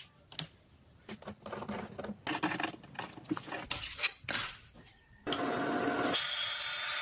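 Scattered light taps and clicks of wood being worked by hand, then a small power tool starts running steadily about five seconds in, with a high whine.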